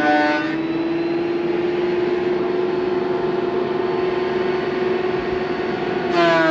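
Electric wood planer running. About half a second in, a walnut board finishes its pass and the motor runs free with a steady, slightly higher hum. Near the end the pitch drops and the sound grows fuller as the next board is fed in and cut.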